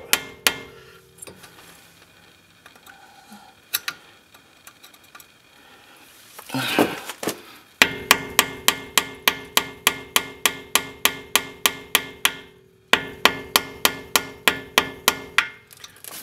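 A hammer striking a flathead screwdriver driven into the crimped (staked) collar of a front axle nut, knocking the crimp out so the nut can be turned. Sharp metal-on-metal taps with a ringing tone: a few scattered blows, then two fast runs of about five strikes a second in the second half.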